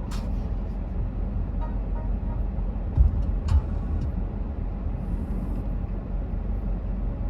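Steady low rumble inside a car's cabin, with a click right at the start and two dull knocks about three seconds in.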